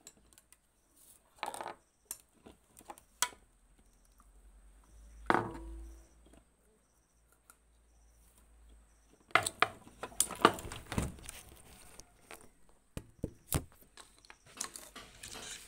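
Scattered clicks, knocks and clatter of hands handling a small plastic appliance housing and its parts. There is a single louder knock about five seconds in and a busy run of clatter about nine to eleven seconds in.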